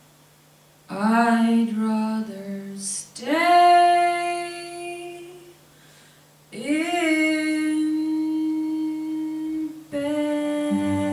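A woman singing slow phrases almost alone, the last two ending in long held notes, over a faint sustained low note. Near the end the instruments come back in with sustained chords.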